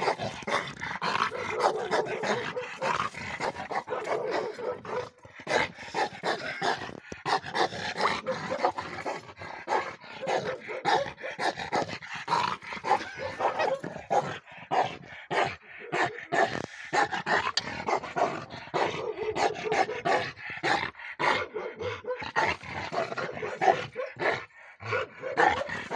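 Dog barking aggressively and without a break, a guard dog's warning at someone close by.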